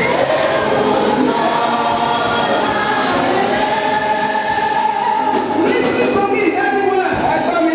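A church choir singing gospel music, several voices holding long sung notes together.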